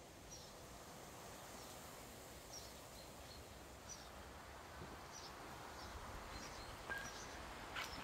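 Faint outdoor background noise with a small bird giving short, high chirps every second or so; a couple of soft knocks near the end.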